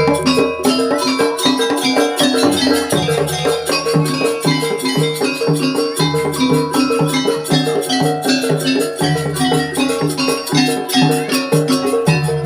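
Jaranan campursari music with a steady, fast beat: struck tuned percussion and drums repeating a pattern over a held bass.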